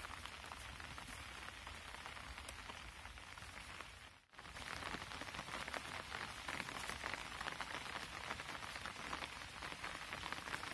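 Light rain pattering steadily, a dense scatter of small drop ticks over a soft hiss. The sound briefly cuts out about four seconds in, then comes back a little louder.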